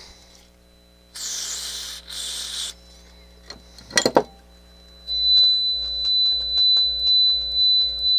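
Two short hisses of Chroma Mist aerosol contact cleaner being sprayed, then a sharp click. About five seconds in, a steady high-pitched tone comes up with a regular pulsing beneath it, about one and a half beats a second.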